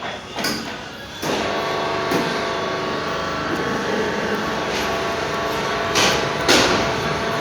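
Steady mechanical running noise carrying several steady humming tones, starting about a second in, with a few short sharp knocks over it.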